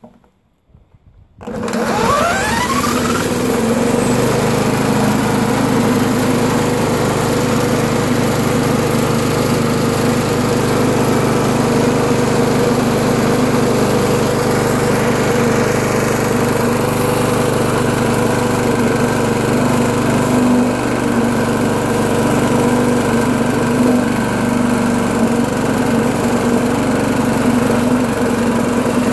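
Talon lawnmower engine spun over with a power drill on its flywheel nut, standing in for the broken recoil starter. It starts about a second and a half in with a quick rise in pitch, then runs steadily.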